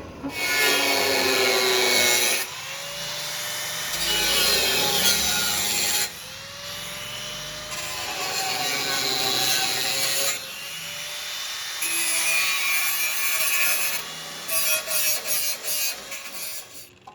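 A power tool cutting into a steel gate to open the recess for a lock box. It runs in several long continuous passes, its pitch sagging under load, then gives a string of short bursts near the end.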